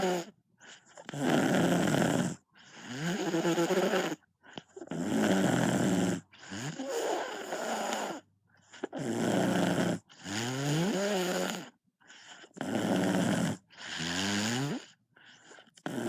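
Loud, repeated snoring, one snore about every two seconds, several of them rising in pitch through the breath.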